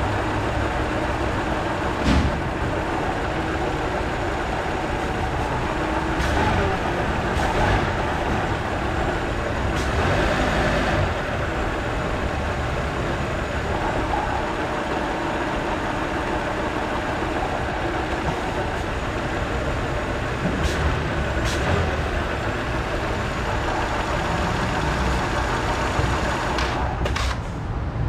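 Volvo S80 3.2-litre inline-six engine idling with a coarse, chunky grinding rattle and a few sharper knocks: the engine is shaking on a broken engine mount.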